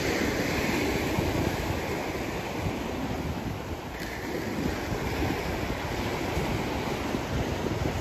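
Sea surf washing onto the beach as a steady rushing noise, with wind buffeting the microphone.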